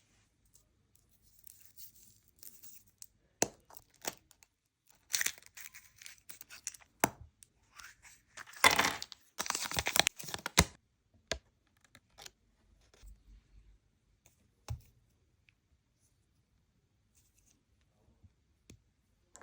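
A Kinder Natoons wrapper being torn open and crinkled by hand, with scattered rustles and a few sharp clicks. The loudest tearing comes about halfway through, then it goes quiet.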